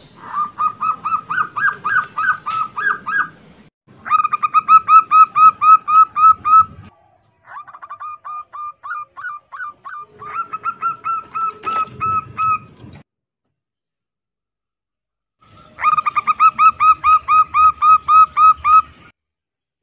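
Female zebra dove (perkutut) in breeding condition calling a male: fast runs of short notes, about five a second, repeated in five bouts of a few seconds each, with a silent gap of a few seconds before the last bout.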